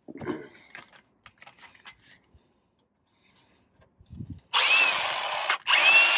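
A few light clicks and knocks of tools being handled, then about four and a half seconds in a handheld power tool starts with a high whine over a loud hissing noise, cuts out for a moment and starts again, its whine rising as it spins back up.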